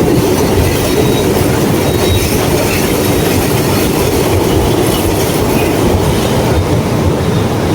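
Loud, steady rumbling background noise, heaviest in the low end and without any distinct events.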